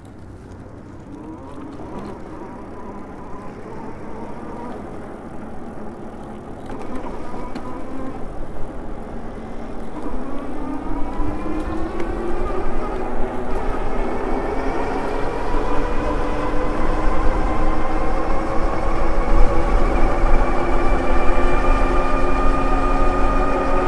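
Electric hub motor of a Super73 e-bike whining as the bike accelerates, its pitch rising slowly and steadily as speed builds. A low wind rumble on the microphone grows louder alongside it.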